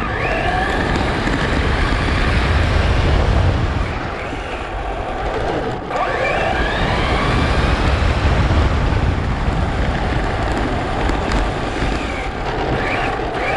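Traxxas Slash 4x4 RC truck's electric motor and drivetrain whining in rising sweeps as it accelerates, about three times. Under it is heavy wind and tyre rumble on the onboard GoPro's microphone.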